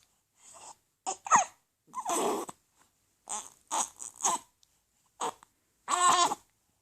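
A four-week-old baby hiccuping: a string of short hiccups at irregular intervals, mixed with small whimpers, with a longer whimpering cry near the end.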